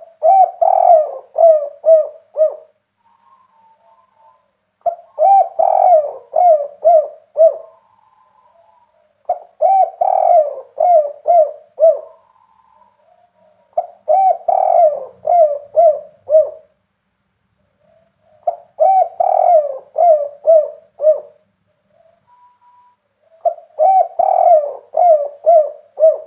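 Seven-year-old caged spotted dove (derkuku) cooing its full-voiced 'kuk 3' song. Six phrases of several pulsing coo notes, each about two and a half seconds long, repeated about every four and a half seconds.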